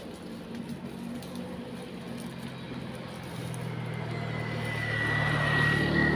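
A motor scooter approaching and passing on the road, its engine getting steadily louder through the second half. A steady high whine joins in about two-thirds of the way through.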